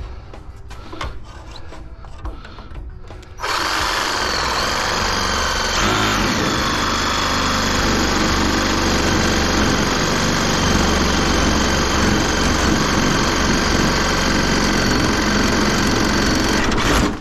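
Ryobi one-handed reciprocating saw cutting into a metal busbar. It starts about three and a half seconds in, runs steadily, and stops suddenly near the end. It is a hard, slow cut, which the user puts down either to a worn-out blade or to unusually strong aluminum.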